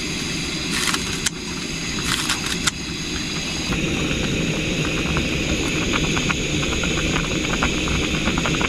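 A pot of ramen boiling on a gas stove: a steady burner rush under bubbling and spattering that thickens and grows louder about four seconds in. A few light clicks in the first three seconds.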